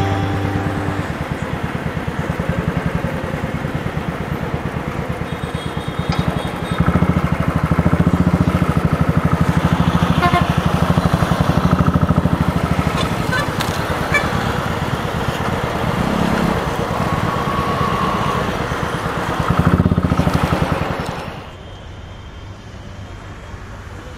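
Motorcycle engine running under way, heard from the bike with wind and road noise, its even exhaust pulsing getting louder as it pulls harder about a quarter of the way in and again shortly before the end. A few seconds before the end it gives way to a much quieter background.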